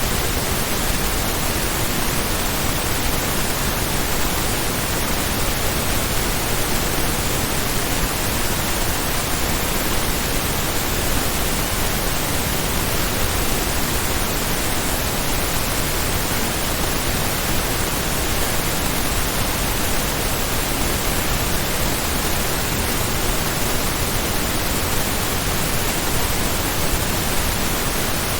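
Steady pink noise test signal in true stereo, an even hiss spread across the whole range of pitch, mastered to -14 LUFS with a 1 dB peak.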